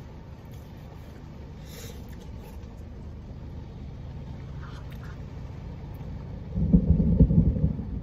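Thunder rumbling, heard from inside a car; it sets in loudly about three-quarters of the way through, over the steady sound of heavy rain on the car.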